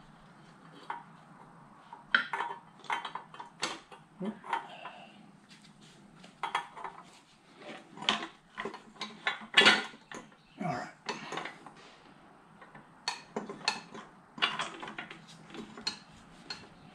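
Irregular metal clinks and taps as steel retaining wedges are worked onto the exhaust manifold studs, with one sharper knock a little under ten seconds in.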